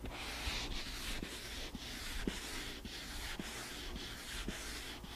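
Sandpaper rubbed by hand back and forth over a plywood panel coated with a cured water-based finish, a hissing scratch in even strokes about two a second.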